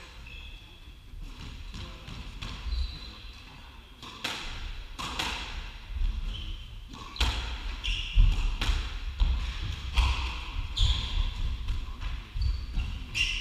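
Squash rally: the ball cracking off the rackets and the court walls in quick succession, beginning about four seconds in, with short squeaks of shoes on the wooden court floor between the shots.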